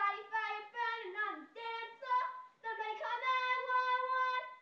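A young girl singing in a high voice, moving through short notes and then holding one long note near the end.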